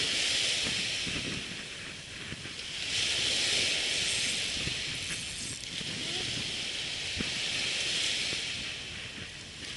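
Surf on a sandy beach: a hiss of waves washing in that swells and fades every few seconds.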